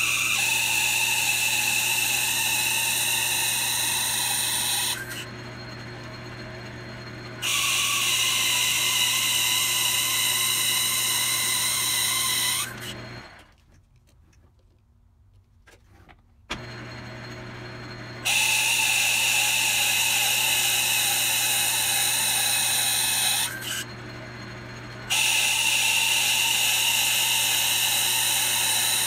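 Logan 10-inch lathe running, boring out a brass bushing in four cutting passes. Each pass is a high, steady cutting whine over the lathe's steady hum. The lathe shuts off a little before the middle for about three seconds and then starts again.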